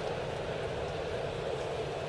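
Steady murmur of a baseball stadium crowd.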